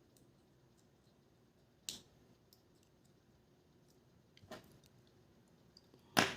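Small tools and camera parts being handled during disassembly. Sharp clicks and taps sound on a hard work surface, with three louder taps about two seconds apart, the loudest near the end, and faint ticks between them.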